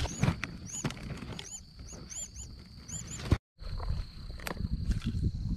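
Lakeside ambience with wind rumbling on the microphone, a bird repeating short chirping notes about twice a second, and a steady high insect drone. The sound cuts out for a moment a little past the middle.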